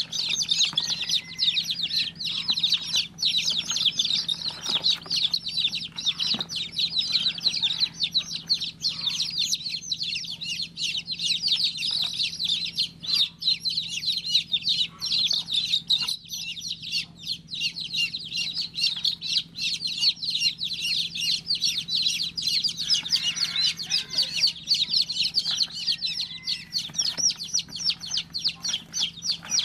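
Baby chicks peeping continuously, many short high chirps overlapping with no break.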